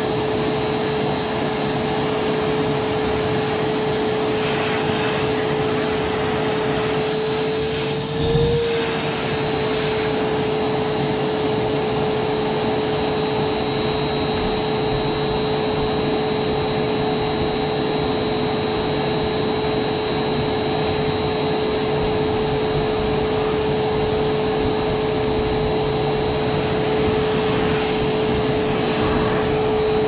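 Canister vacuum cleaner running steadily with a constant motor whine. About eight seconds in there is a low thump and the whine's pitch briefly rises, then it settles back.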